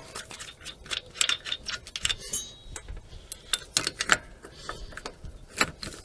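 Ratchet wrench clicking in short irregular runs, with metal clinks, as the rusted bolts holding the Vauxhall Astra rear wheel hub are undone.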